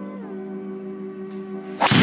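Ping G400 LS Tec driver striking a golf ball: a single loud, sharp crack near the end, with the ball's thud into the simulator screen following at once. Steady background music plays underneath.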